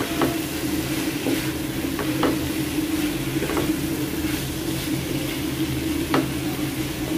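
An egg frying in with cauliflower bhaji in a pan: a steady sizzle as it is stirred, with a few sharp knocks of the utensil against the pan.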